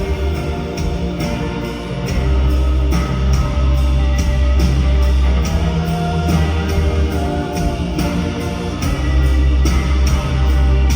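Rock band playing live: an instrumental passage with guitar, heavy bass and a steady drum beat.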